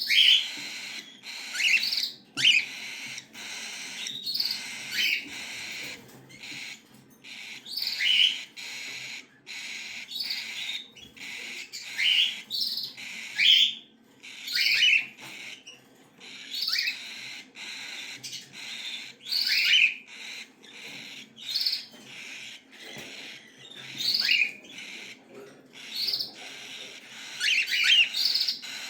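Cockatiel chicks calling: short chirps repeated about every one to two seconds.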